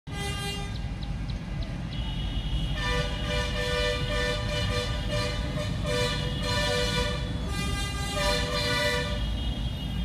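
Horn-like tones sounding in repeated blasts of half a second to a second each over a steady low rumble, starting about three seconds in.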